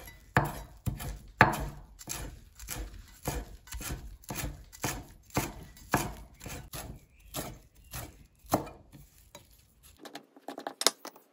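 Chef's knife chopping parsley and cilantro on a wooden cutting board: a steady run of blade strikes, about two or three a second, that stops a couple of seconds before the end, leaving a few light ticks.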